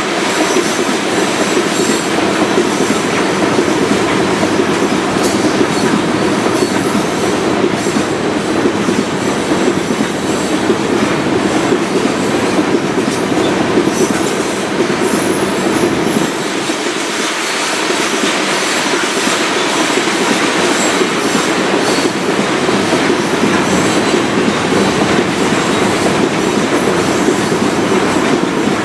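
Norfolk Southern freight train's cars rolling past steadily, wheels clicking over the rail joints, with faint high wheel squeal.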